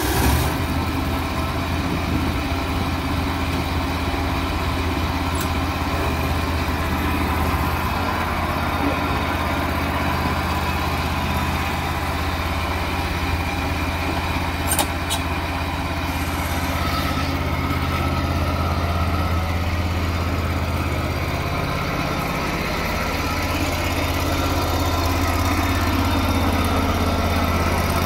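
Engine of a John Deere Z920A zero-turn mower running steadily just after starting. Its speed shifts about two-thirds of the way in, and it runs slightly louder toward the end.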